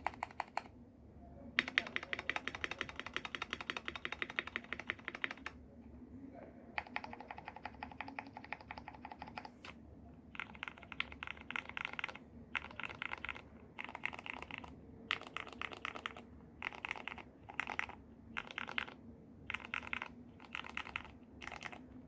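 Typing on a KBD67 Lite R3 mechanical keyboard with Cherry MX Hyperglide Black linear switches: runs of rapid keystrokes, two long runs in the first half, then shorter runs of about a second each with brief pauses between them.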